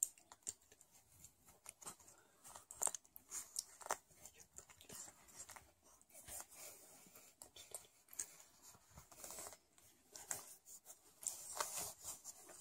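Faint, irregular soft clicks, wet smacking and rustling from a Sphynx mother cat in labour and her newborn kitten shifting on a crinkly disposable pad, with a louder patch of rustling near the end.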